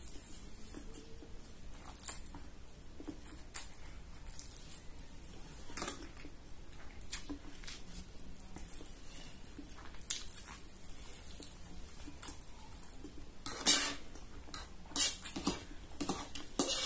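Close-miked eating: wet chewing and mouth smacking of fried instant noodles and fried egg, with slurps and the clink of a metal fork on a plate. The sounds are irregular, with a few louder ones near the end.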